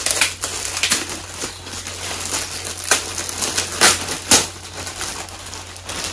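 Clear plastic bag crinkling and rustling as it is pulled open and worked off a pair of slippers, with several sharper, louder crackles, the loudest a little under a second apart around the middle.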